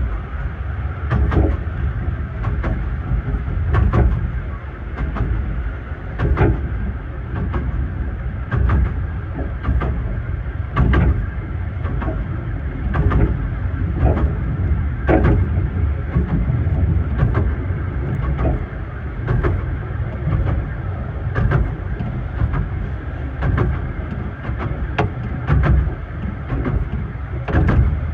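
Carriage of a 15-inch gauge miniature railway running along the track, heard from inside its compartment: a steady low rumble with frequent irregular knocks and rattles, about one or two a second.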